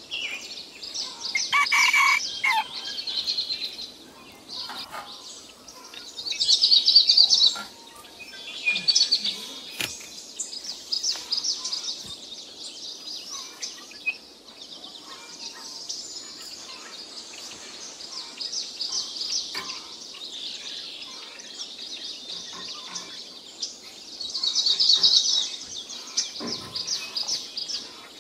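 Birds chirping and trilling in repeated bursts of rapid, high twittering over steady outdoor background noise, with a few faint knocks and taps.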